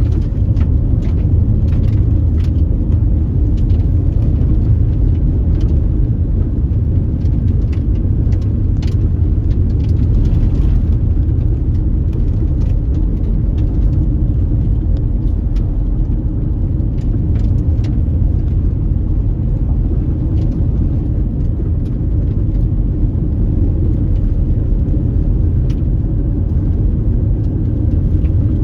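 Car driving on a dusty unpaved road: a steady low rumble of tyres and engine, with scattered small ticks throughout.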